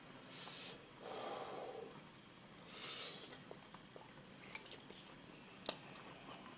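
Quiet breaths and puffs of air from a person eating hot noodles, three soft puffs in the first half. Faint light clicks follow, with one sharper click near the end.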